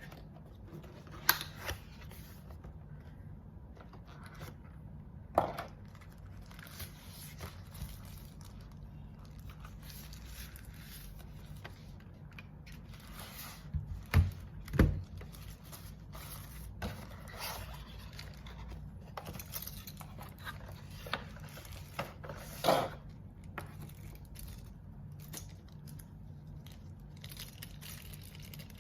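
Rustling, scraping and scattered clicks of a compact mechanical keyboard and its packaging being handled, with a few knocks. The loudest is a pair of thuds about 14 to 15 seconds in.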